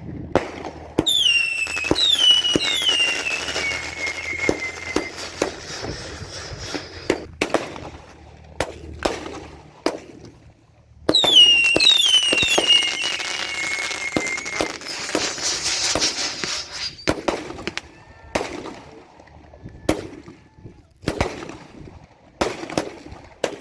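Consumer fireworks going off: two volleys, about a second and about eleven seconds in, each with several whistles falling in pitch, amid repeated sharp bangs and cracks.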